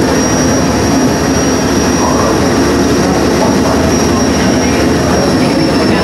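A ferry boat's engine running steadily under way, mixed with the rush of wind and water and a thin, steady high whine.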